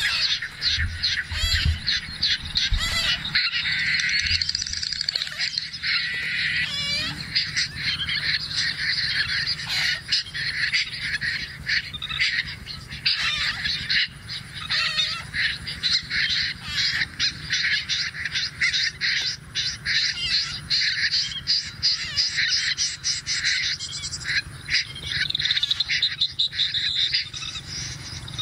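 Bird calls: a dense, unbroken stream of rapid, high, repeated chattering notes.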